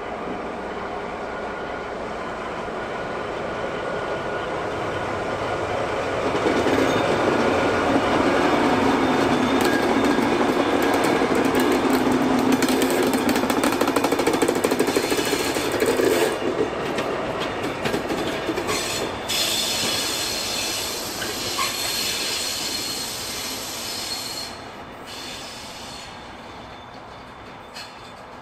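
DR class 118 (V 180) diesel-hydraulic locomotive running past with no train: its engine noise builds as it approaches and is loudest for about ten seconds as it passes close by. It then fades as it moves away, with wheel clicks and some squealing over the rails.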